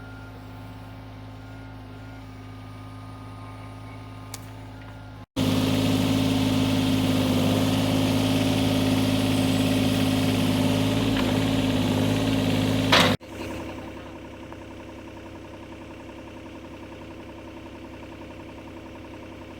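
Excavator's diesel engine running steadily at a constant speed. Hard cuts about five seconds in and again about eight seconds later split it into three segments, and the middle segment is much louder and closer.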